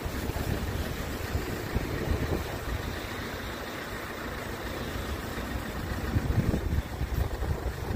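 Road traffic running at a level crossing, a rumbling engine noise mixed with wind buffeting the microphone. No crossing alarm is sounding.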